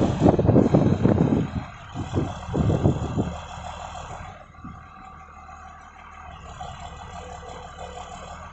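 The Isuzu 6BG1 six-cylinder diesel of a Dalian CPCD60FA forklift revs hard while the hydraulics lift a heavy concrete block on the forks. It surges a few times and drops back to a steady, much quieter idle about four seconds in.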